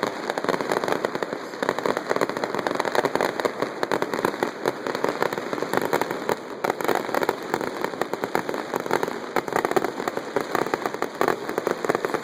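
Fireworks going off in a dense, continuous rattle of small pops and crackles, many per second, with little deep boom.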